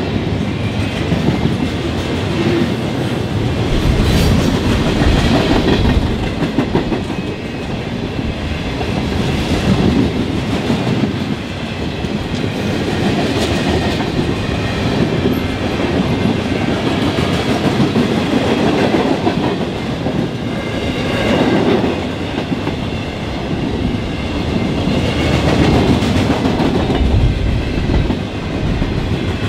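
Freight cars of a long train (boxcars, gondolas, a tank car) rolling past close by: a steady rumble with the wheels clacking over the rail joints.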